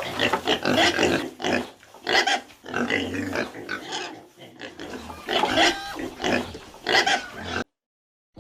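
Pig grunting over and over in short noisy bursts, cutting off abruptly near the end.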